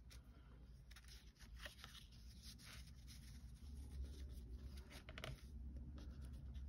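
Faint rustling of card stock and linen thread with scattered light ticks, as the thread is tied into a bow by hand, over a low steady room hum.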